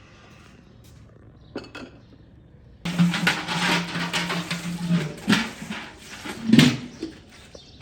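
Metal cooking utensils clattering and scraping against pots, starting about three seconds in, with a few louder knocks. A steady low hum runs under the first couple of seconds of the clatter.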